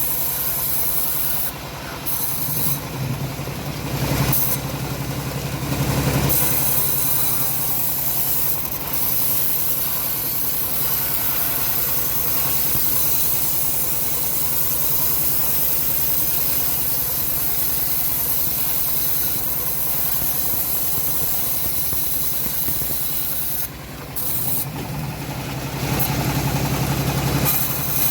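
Homemade engine-driven bandsaw mill running, its blade sawing lengthwise through a log with a steady rasping hiss over the engine's hum. Twice, a couple of seconds in and again near the end, the hiss thins out for a few seconds while the engine gets louder.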